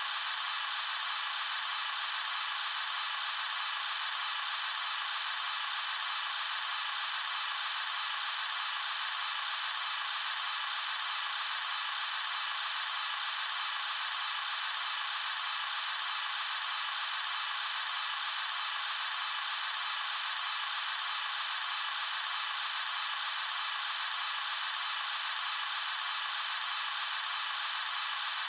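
Pressurised gas escaping in a loud, steady hiss, all high and airy with no low rumble, holding the same level without a break.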